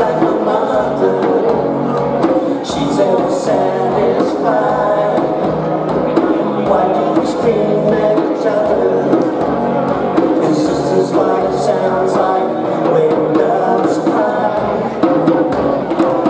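Small live band playing a song with singing, over electric guitar, djembe and drum kit with a steady beat.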